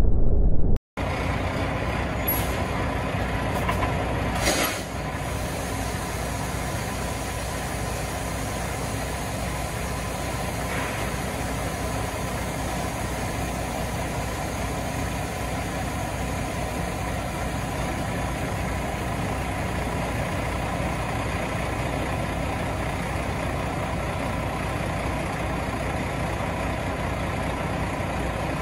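A loud sound in the first second cuts off abruptly. Then a semi truck's diesel engine idles steadily, with a brief hiss of air about four and a half seconds in.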